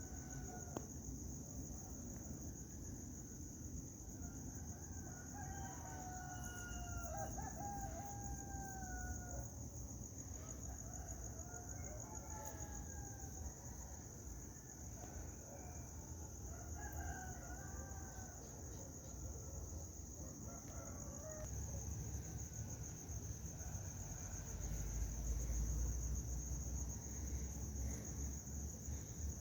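Roosters crowing repeatedly, calls following and overlapping one another. Beneath them runs a steady low rumble that grows louder in the last several seconds, and a continuous thin high whine.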